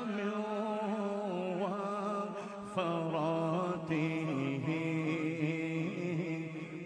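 Background music: a single voice chanting a gliding, ornamented melody over a steady low drone.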